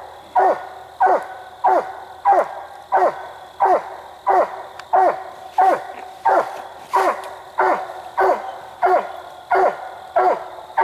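Treeing Walker coonhound barking treed at the base of a tree: steady, evenly spaced chop barks, about three every two seconds, each dropping in pitch. This bark tells that the dog has a raccoon up the tree.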